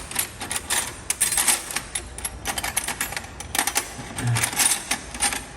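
Small metal hand tools, mostly wrenches, clinking and rattling against each other as they are rummaged through and picked out of a tool box drawer, with many quick irregular clicks.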